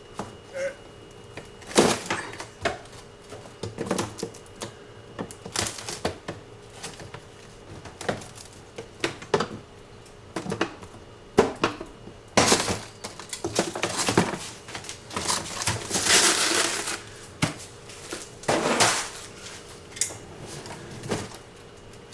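Freezer drawer clips and slide rails being worked at by hand and with a tool: irregular clicks, knocks and rattles of plastic and metal, with a few longer scraping stretches about halfway through.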